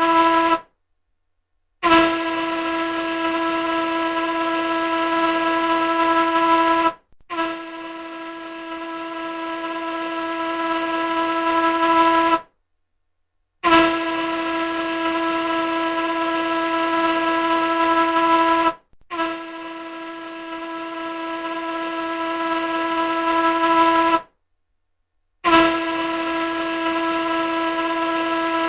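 Large ship's horn sounding a series of long, steady, single-pitched blasts of about five seconds each, with short silences between them.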